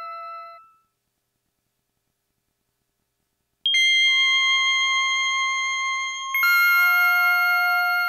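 Slow synthesizer music of long held notes. A sustained note dies away within the first second, then about three seconds of silence. New held notes start abruptly about four seconds in, and another chord enters around six and a half seconds.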